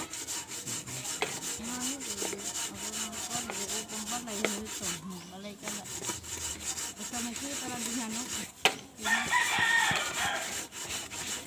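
A hand scrubbing the soot-blackened bottom of a metal rice pot with wet, gritty paste, a rhythmic scratching rub stroke after stroke. A rooster crows about nine seconds in.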